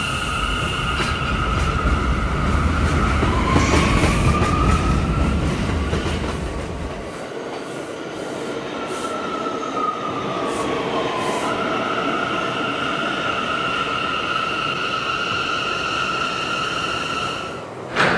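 New York City subway train running on the rails, with a steady high-pitched wheel squeal and a motor whine that rises in pitch about three seconds in and falls again around ten seconds. A heavy low rumble eases off after about seven seconds.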